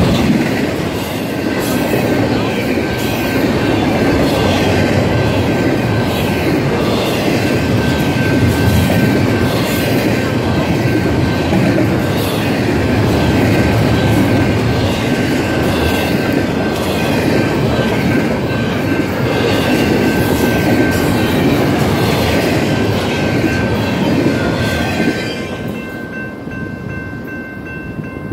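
Double-stack container freight cars rolling past at speed: a steady rumble of steel wheels on rail with rhythmic clicking over the rail joints. About 25 s in the last car passes and the rumble drops away, leaving the grade-crossing bell ringing, which is heard under the train noise throughout.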